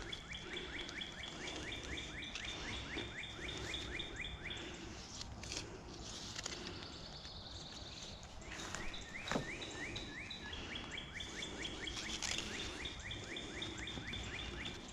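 A songbird singing long runs of quick, evenly repeated upswept chirps, about six a second, in two stretches with a pause between them; a single knock sounds a little past halfway.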